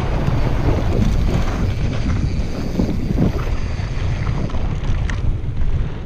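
Wind buffeting the microphone of an action camera on a mountain bike descending a dirt trail at speed, mixed with the rumble of the tyres over the ground. There are a couple of sharp clicks from the bike about five seconds in.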